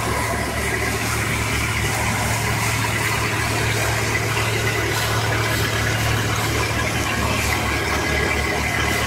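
Engine of a gold-mining pit's water pumps running steadily: an even low drone with a faint high whine above it.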